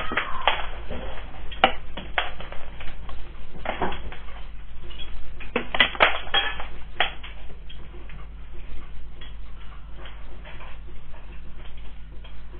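Household objects rattling, clattering and knocking as a house shakes in a strong earthquake, through a CCTV camera's microphone over a steady electrical hum. The knocks come thick and fast at first and thin out to lighter rattling toward the end.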